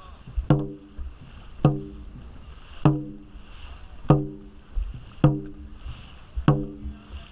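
Dragon boat drum beaten steadily, one ringing boom about every 1.2 seconds, setting the paddlers' stroke rate. Between the beats, water splashes from the paddle strokes.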